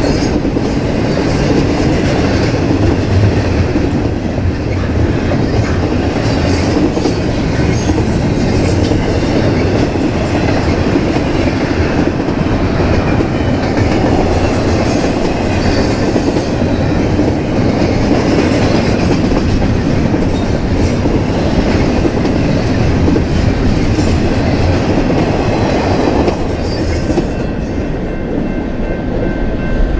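Double-stack intermodal freight train of well cars rolling past: a steady rumble with the clickety-clack of wheels over the rails. Near the end the last car goes by and the noise eases.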